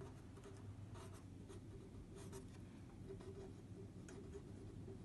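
Marker pen writing on paper: faint, short scratching strokes at irregular intervals.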